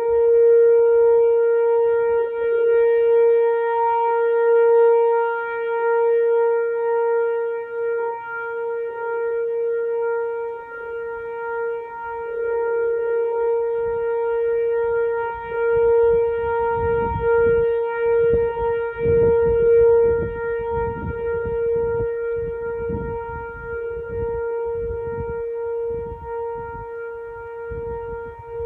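Outdoor warning siren sounding a steady alert tone at one unchanging pitch, its loudness swelling and dipping slightly.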